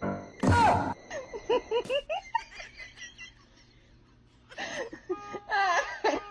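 A person laughing in quick, short bursts, in two spells with a quieter pause in the middle.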